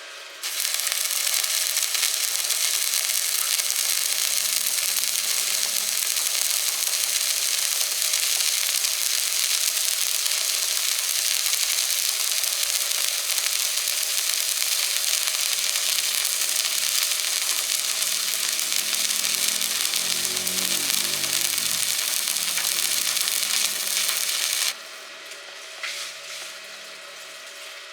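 Electric arc welding: the arc burns steadily with an even, dense noise, striking about half a second in and cutting off suddenly a few seconds before the end.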